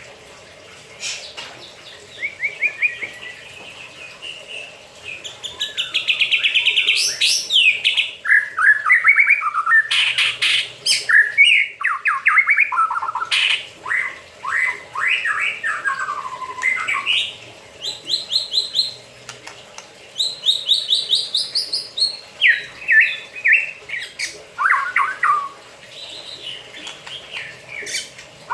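White-rumped shama singing a long, varied song of fast trills, whistled glides and chattering notes, with short pauses between phrases.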